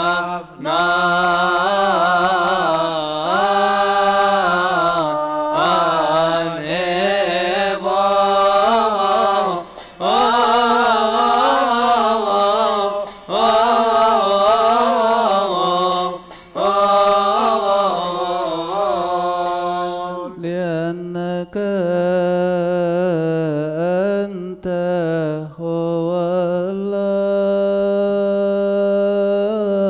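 A man's voice chanting a long, melismatic Coptic Orthodox liturgical chant into a microphone, each syllable drawn out over winding pitches, with brief breaths between phrases.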